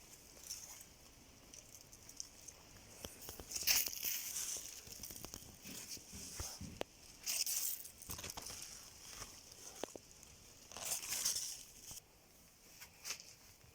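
Tomato plants' leaves and stems rustling in about three separate bursts, with a few small snaps, as ripe tomatoes are picked off the vines.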